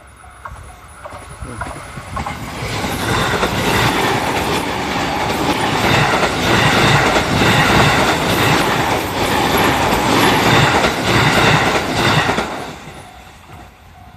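Electric train passing close by, wheels clacking over the rail joints in repeated clusters, building up about three seconds in and dying away near the end. A level-crossing warning bell rings in a steady repeating pattern beneath it.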